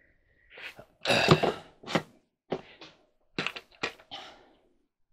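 Clothes dryer drum and parts being handled: a run of short knocks and thunks, with a louder, noisier clatter about a second in and a few quick clicks near the end.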